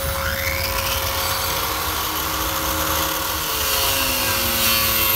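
RotoZip Rebel rotary tool with a heavy sanding disc grinding the fiberglass hull laminate around a hole. Its whine rises as it spins up at the start, then runs on as a steady grinding rush.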